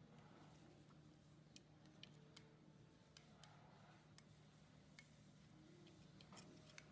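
Near silence with a low steady hum and faint, irregular light clicks, about nine of them scattered through.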